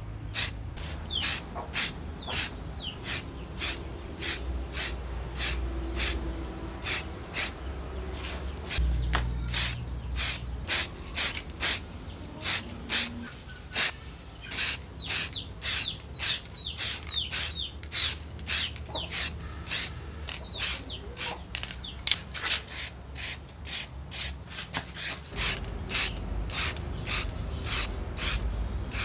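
Aerosol spray paint can hissing in short, even bursts, about two a second, as silver paint is sprayed onto the cast metal housing parts of the groove cutter. Birds chirp in the background, most near the start and in the middle.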